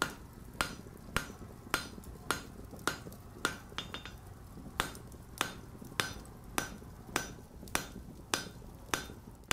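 Blacksmith's hammer striking hot steel on an anvil at a steady pace of a little under two blows a second, each blow ringing, with a brief pause about four seconds in. A low steady rumble runs underneath.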